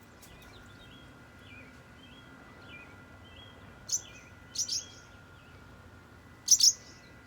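Barn swallows calling: soft twittering throughout, with sharp loud high calls about four seconds in, a quick pair just after, and the loudest double call near the end. The calls come from swallows upset at a person standing by their fallen nest.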